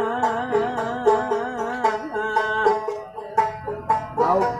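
A street singer holds a long, wavering sung note, with plucked-string accompaniment under it. Near the end a new phrase begins.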